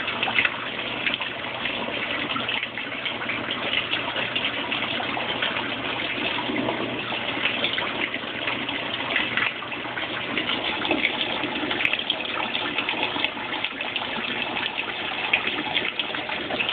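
Water rushing and splashing steadily into the spinning tub of a Kenmore Oasis top-load washing machine, which is filling during its self-test fill-while-spin step (C1).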